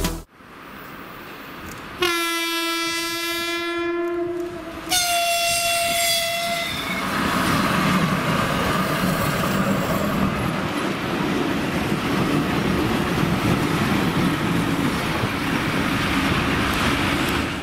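Electric locomotive horn sounding twice, a lower blast of about two seconds and then a higher, shorter one, followed by the steady rumble and clatter of the electric locomotives' wheels on the rails as they pass.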